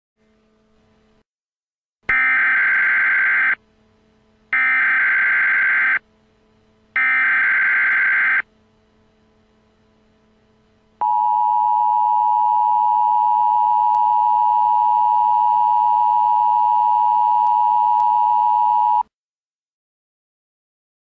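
Emergency Alert System SAME header: three bursts of digital data tones, each about a second and a half long, then a long steady attention tone of about eight seconds that cuts off abruptly. On NOAA Weather Radio this sequence marks the start of a warning message, here a winter storm warning.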